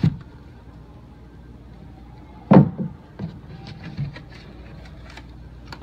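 Cardboard box being unpacked on a wooden table: a knock as the lid comes off, a loud thump about two and a half seconds in, then a few lighter knocks and small clicks as the RC car is handled inside the box.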